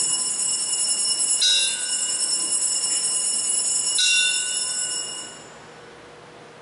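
Altar bells rung at the elevation of the host at Mass: bright, high ringing that is struck again about every two and a half seconds, twice in this stretch, then dies away about five seconds in.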